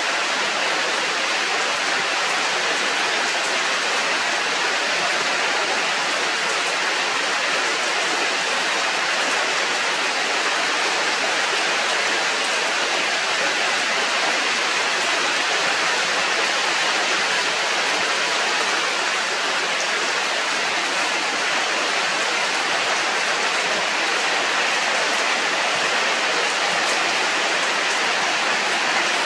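Steady, even rushing of water, unchanged throughout, with no other sound standing out.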